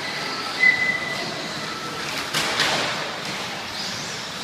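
Electric radio-controlled short course trucks racing on a dirt track: a thin steady motor whine in the first second, a sharp knock about half a second in, and a few more knocks around two and a half seconds in as the trucks land or hit each other.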